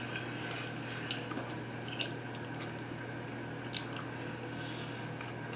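Faint chewing of white bread: scattered small mouth clicks and wet smacks as two people bite and chew, over a steady low hum.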